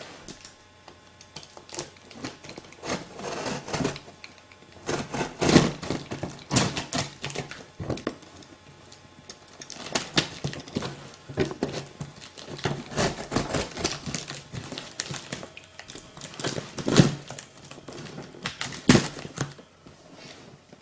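A cardboard shipping box being opened and unpacked by hand: packaging crinkling and tearing in irregular bursts, mixed with clicks and knocks as the box and its contents are handled.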